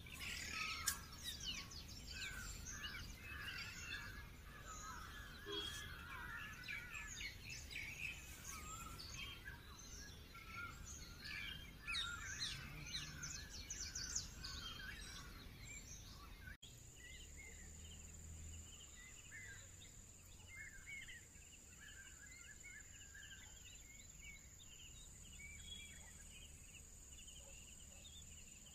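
Forest birds chirping and calling, many short overlapping calls. After a cut about two-thirds of the way in, the calls thin out and a steady high-pitched buzz runs underneath.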